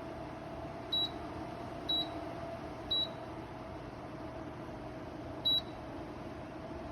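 Dreo tower fan running with a steady whoosh and a faint hum, and four short high beeps over it, three about a second apart and a fourth a couple of seconds later: the fan's control panel answering button presses.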